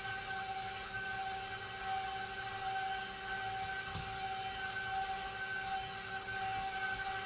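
Steady mechanical hum with a few fixed, unchanging pitches over a low background noise. A single sharp click comes about four seconds in.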